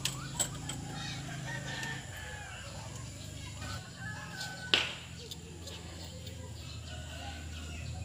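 A rooster crowing, with one sharp click about halfway through.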